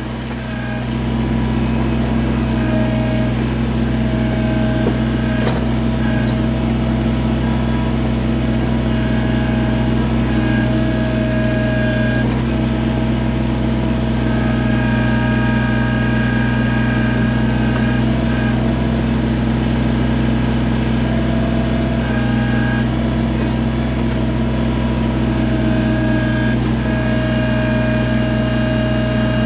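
Kubota BX23S compact tractor's three-cylinder diesel running steadily while its backhoe digs, with a higher whine that comes and goes every few seconds as the backhoe is worked.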